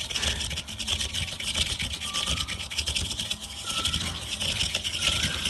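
Hand-cranked coconut scraper grating the white flesh out of a coconut half: a continuous rasping scrape of the serrated steel head against the coconut, made of rapid close-set strokes.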